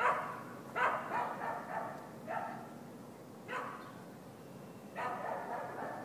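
A dog barking, five barks at irregular intervals.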